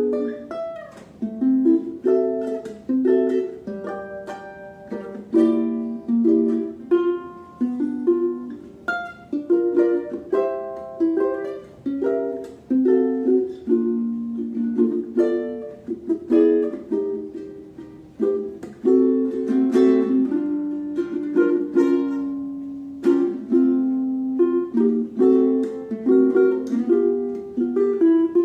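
Maestro Island Series UT-MR SB G ukulele played solo fingerstyle: a continuous plucked melody with chords underneath, notes starting crisply and ringing out, recorded raw with no effects.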